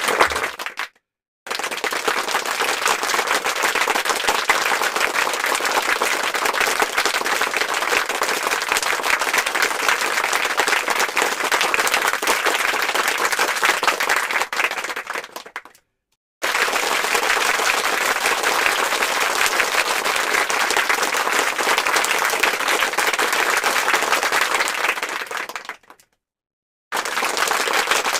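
Applause sound effect: a crowd clapping densely, played as repeated clips that fade and drop to dead silence briefly three times, about a second in, around the middle and near the end, then start again.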